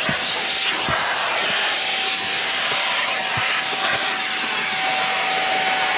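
Vacuum cleaner running steadily, a loud rush of air with a constant high whine, as its hose nozzle with a rubber pet-hair attachment is worked over a car's carpeted floor mat.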